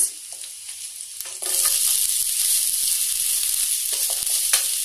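Garlic and chopped onion frying in hot oil in a non-stick kadai, a steady high sizzle that jumps much louder about a second and a half in as the onions go into the oil. A wooden spatula stirs through them, with a few light clicks against the pan near the end.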